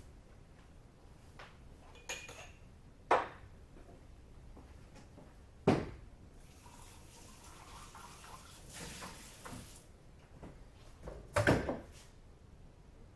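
A few sharp knocks and clinks of dishes at a kitchen counter, with water running from a tap for about three seconds midway.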